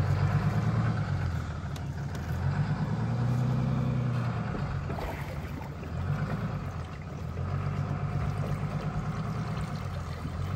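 Engine running steadily, its pitch rising and falling a few times as it speeds up and slows.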